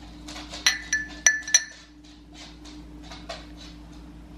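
A small bowl knocked against the rim of a ceramic mug to tip grated carrot in: three sharp, ringing clinks in quick succession about a second in, with lighter taps and scrapes around them.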